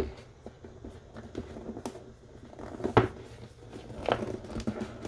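The cardboard lid of a keyboard box being lifted off slowly: light rustling and scraping, with scattered soft taps and clicks and a sharper knock about three seconds in.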